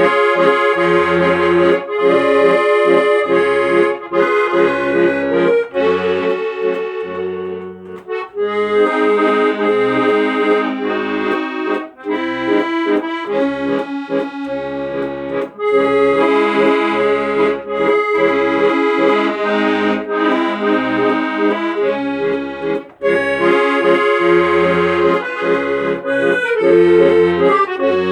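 Instrumental music: sustained chords over a bass line, with a few brief breaks between phrases.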